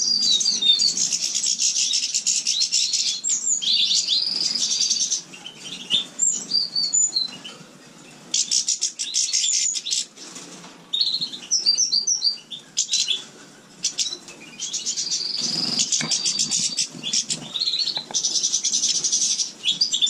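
Several caged songbirds singing and twittering at once: fast trills mixed with clear whistled notes, in long bursts that drop away twice for a few seconds.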